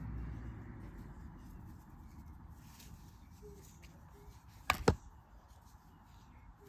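Two quick scissor snips close together, about five seconds in, cutting yarn tails, over faint rustling of yarn being handled.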